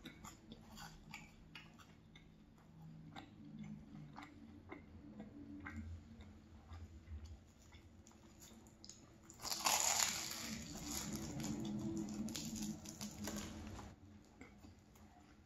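Close-up chewing of a flaky croissant with small wet mouth clicks, then, about ten seconds in, a louder crackly rustle lasting about four seconds as the croissant's flaky layers are pulled apart by hand.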